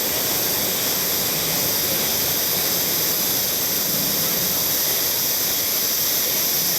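Steady rush of water falling over a small river waterfall, an even, unbroken hiss.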